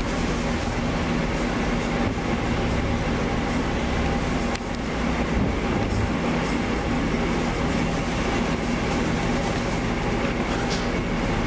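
Winery machinery running steadily: a low, even hum with a few steady tones under a constant rushing noise, and one brief click near the middle.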